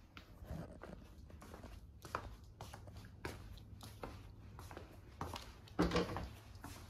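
Footsteps in slippers on a wooden floor: irregular soft knocks and scuffs, with a louder thump just before six seconds in.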